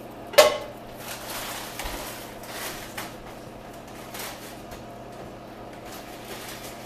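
Kitchen items being moved and cleared aside: a sharp knock about half a second in, then a few seconds of rustling and handling noise that dies away.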